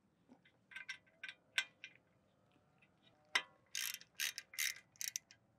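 Hand ratchet with a T30 Torx bit clicking in short runs as the brake rotor's set screw is driven in and snugged down. The clicks come louder and closer together near the end.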